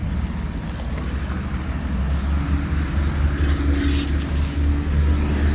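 Wind buffeting a phone's microphone outdoors, a steady low rumble, with a faint steady hum joining about two seconds in.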